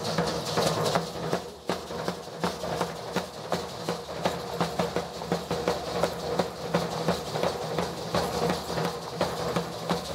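Hand-held drum beating a steady, fast dance rhythm for a Mexican folk danza, with the clatter of the dancers' sticks and footwork mixed in.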